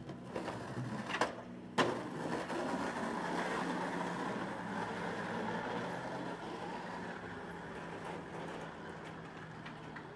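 Two sharp clacks of a skateboard, then a steady rolling rumble of skateboard wheels on rough street asphalt starting about two seconds in, with a low steady hum underneath.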